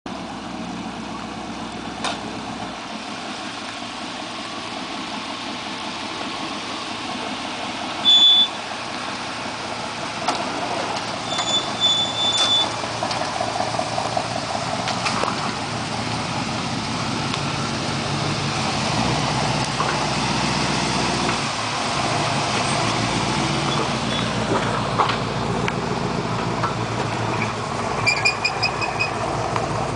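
Lifted square-body pickup truck's engine running at low speed as it crawls over a rough gravel trail, growing louder as it comes closer. A short, loud, high-pitched tone sounds about eight seconds in, two more follow around twelve seconds, and a quick run of high pips comes near the end.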